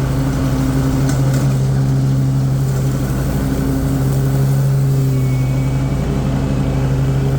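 Cub Cadet Tank L48 zero-turn mower's Kohler 694 cc engine running steadily with the cutting blades engaged, mowing grass.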